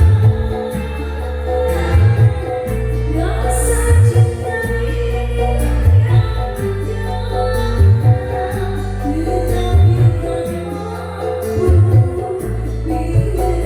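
Music with singing over a heavy bass beat, played through a sound system run from an analog mixing desk.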